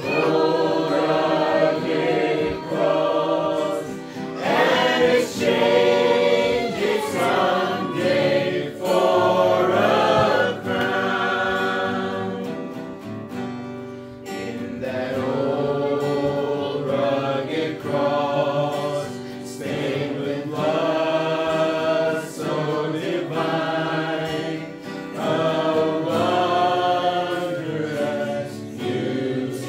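Group of voices singing a worship song in unison, accompanied by a strummed acoustic guitar.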